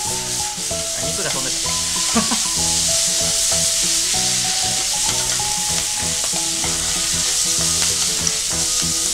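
Yakisoba noodles with cabbage and pork belly sizzling steadily in a hot frying pan as they are tossed and stirred with long chopsticks. Soft background music with a simple melody plays underneath.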